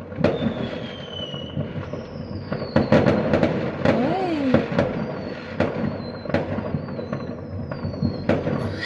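Fireworks bursting overhead: a rapid run of bangs and crackling pops, the loudest about three seconds in, with thin high whistles gliding slowly down in pitch.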